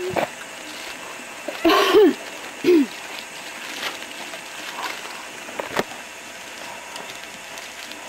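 A person's voice giving two brief calls about two and three seconds in, then a single sharp click near six seconds, over a faint steady outdoor background.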